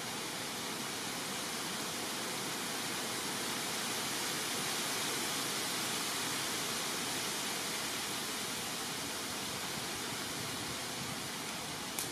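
Steady, even rushing hiss with no distinct events, and one brief click near the end.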